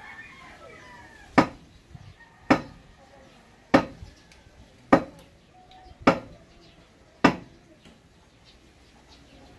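Six sharp, evenly spaced blows about a second apart: the pipe being pounded into the ground during manual deep-well (poso) installation. A chicken clucks faintly near the start.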